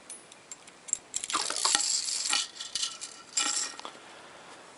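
A steel coil spring being fed into a Remington 870 shotgun's magazine tube: metal scraping and clinking, with scattered clicks at first, a longer scrape about a second and a half in, and a shorter one near the end.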